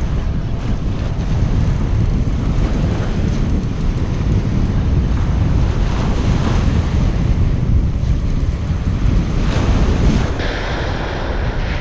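Wind buffeting the microphone over small waves breaking and washing up a sandy beach. About ten and a half seconds in, the wind drops and the hiss of surf on sand comes to the fore.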